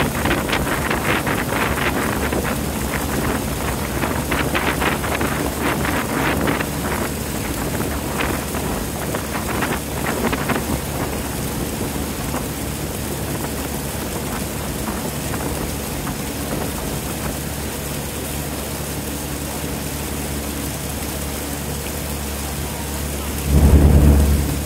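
Water rushing and splashing against the hull of a motor boat under way, over the steady hum of its engine; the splashing is heavy for the first ten seconds or so, then eases. A loud low thump comes near the end.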